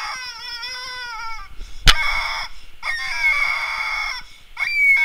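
Rubber chicken squeeze toy squeezed repeatedly, giving about four long, wavering squawks that fall in pitch, with a sharp click about two seconds in.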